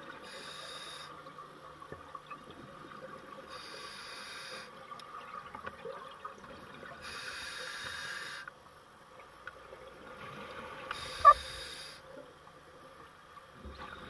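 Scuba diver breathing through a regulator underwater: a burst of hiss and bubbles about every three and a half seconds, over a faint hum. About three-quarters through, a single sharp clink stands out as the loudest sound.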